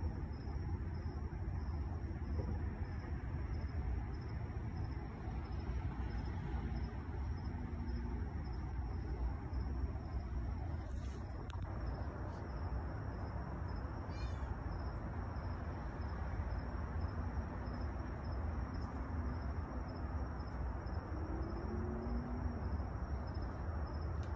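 Outdoor night background noise: a steady low rumble and a constant thin high-pitched tone, with a brief falling chirp about midway and a couple of faint short rising calls near the end.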